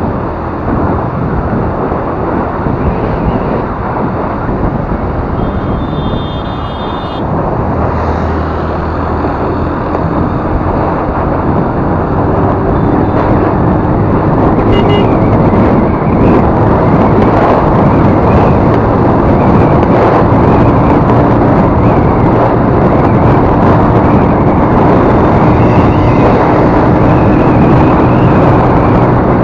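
Wind rushing over the microphone and road noise from a TVS Jupiter scooter riding along, getting louder after about eight seconds. A brief high-pitched tone, like a horn, sounds about six seconds in.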